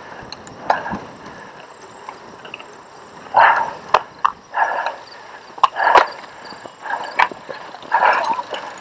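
Cyclocross bike rattling over bumpy grass, with sharp clicks and knocks. Short loud noisy bursts come every second or so, most of them in the second half.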